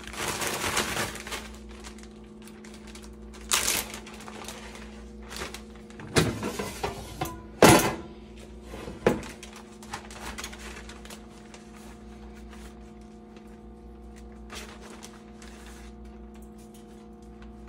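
Plastic zip-top bag crinkling as flounder pieces are shaken in breading. Then come a few sharp plastic clacks as the air fryer's basket drawer is pulled out and handled, the loudest about eight seconds in. A steady low hum runs underneath.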